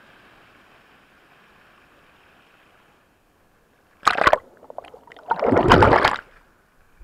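Surf washing over an action camera at the waterline: a faint steady wash of surf, a brief lull, then two loud splashing surges of water against the camera housing about four and five-and-a-half seconds in, as a wave breaks over it and takes it under.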